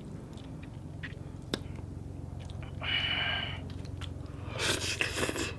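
A person chewing a mouthful of papaya salad close to the microphone, with small wet mouth clicks and one sharper click. There is a louder spell of noise near the end.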